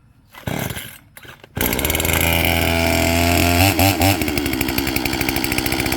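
Two-stroke chainsaw being pull-started: a rasp of the starter cord, then the engine catches about a second and a half in and runs steadily at idle, with two quick throttle blips about four seconds in.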